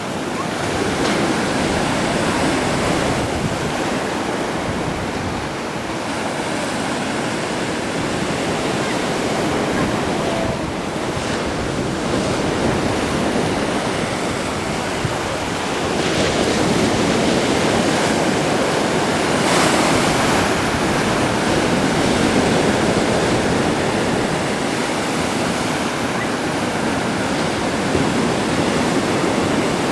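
Black Sea waves breaking and washing on the shore in a continuous surf noise, swelling louder about halfway through, with some wind.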